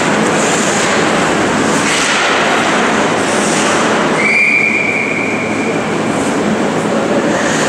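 Steady rushing noise of play on the ice rink, then about four seconds in a referee's whistle sounds one long, steady blast, signalling the stop of play after a scramble at the net.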